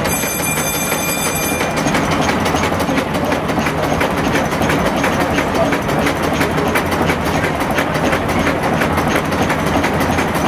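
Atlas steam engine and its belt-driven shafting running steadily, a loud continuous mechanical din with rapid, even clicking.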